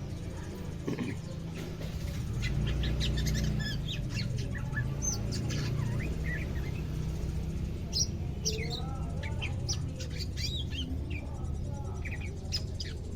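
Caged cucak ijo (green leafbird) calling in short, scattered chirps and whistled notes, some sliding in pitch, as it begins to sing, over a steady low hum.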